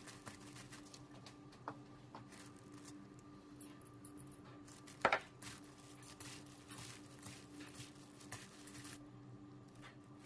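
Faint kitchen handling sounds: light taps and small knocks of utensils and food, with one sharper clatter about five seconds in, over a steady low hum.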